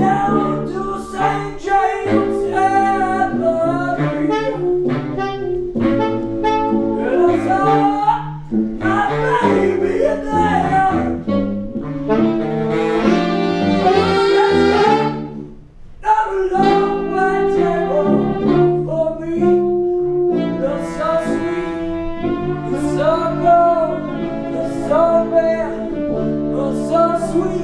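Brass band playing an instrumental passage: saxophones, including a baritone sax, over a sousaphone bass line, with trumpet and trombone. The band breaks off briefly about halfway through, then comes back in.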